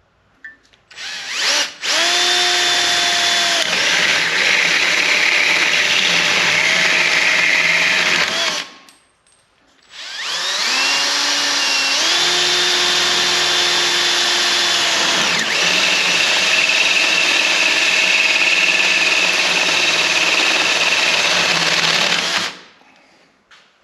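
Handheld power tool working the sheet-metal hinge-plate pocket in two long runs, the second about twice as long as the first. It makes a steady loud whine whose pitch shifts as the tool loads and unloads.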